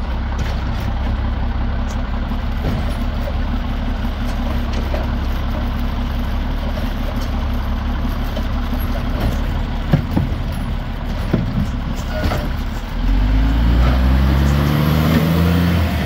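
Diesel Heil Durapack automated side-loader garbage truck running steadily while its arm lifts and dumps a curbside cart, with a couple of sharp knocks about ten and twelve seconds in. About thirteen seconds in the engine gets louder and its pitch rises steadily as the truck pulls away past.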